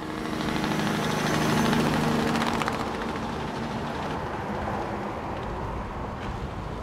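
Tractor engine running steadily with a low hum, loudest about two seconds in and then settling slightly quieter.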